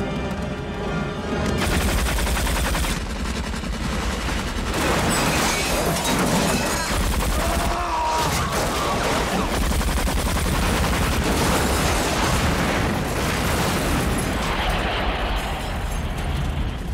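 Film soundtrack: tense music gives way, about a second and a half in, to a long, continuous burst of rapid machine-gun fire with impacts and debris. A man screams about halfway through.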